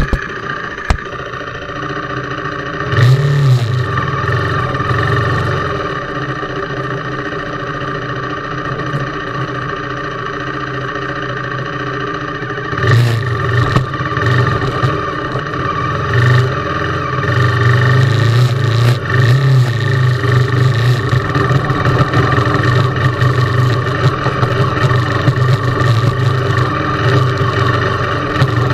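KTM 390 Duke's single-cylinder engine running under changing throttle. The engine picks up briefly about three seconds in and again around thirteen seconds, then runs harder and steadier from about seventeen seconds on.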